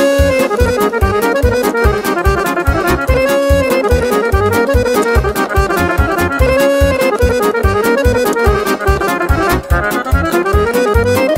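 Romanian party folk music: an accordion playing a fast instrumental melody over a steady, quick bass beat of about four strokes a second.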